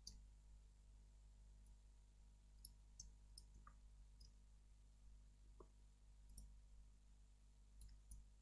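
Near silence with a low steady hum, broken by a few faint, scattered clicks of a computer mouse and keyboard.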